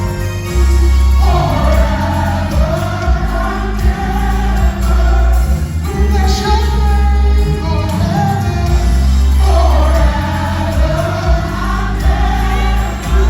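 Live gospel music: a group of singers sings in harmony over a band with heavy bass.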